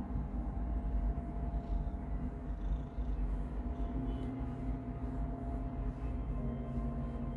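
A domestic cat purring with a steady low rumble. Soft held tones sound underneath and shift pitch about four seconds in and again near the end.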